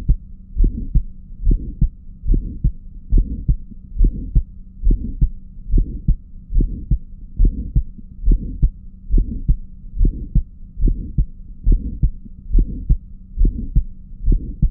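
Recorded stethoscope heart sounds: a steady, regular heartbeat, loud low thuds repeating evenly, with a faint steady hum underneath. Each first heart sound is followed closely by an ejection click, the early systolic sound of the aortic valve opening, which can be mistaken for a split first heart sound.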